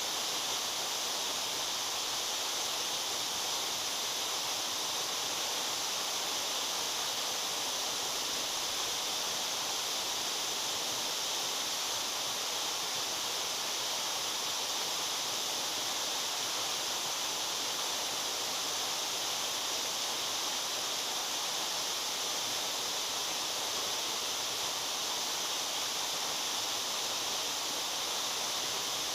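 Waterfall running, a steady, even rush of falling water that stays the same throughout.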